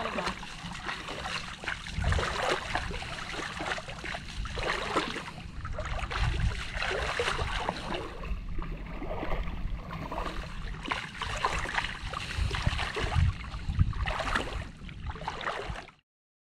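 Irregular sloshing and splashing of water with scattered low thumps; it cuts off abruptly near the end.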